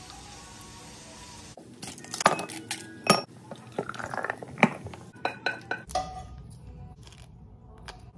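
Glassware and plates clinking on a table, then a dark soft drink poured from a bottle into a tall glass, the pour rising in pitch as the glass fills. The clinks start about a second and a half in, and fainter clicks of handling follow the pour.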